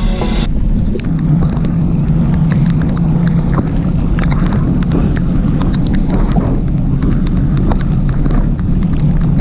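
Mountain bike ride heard from a GoPro: a loud, steady rumble of tyres and air noise with many small rattles and clicks from the bike jolting over the street, and a steady low hum under it from about a second in. Background music cuts off just after the start.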